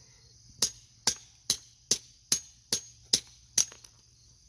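A geode struck with a hammer eight times in quick, even succession, about two to three blows a second, each a sharp crack of metal on rock, as the stone is hammered to break it open.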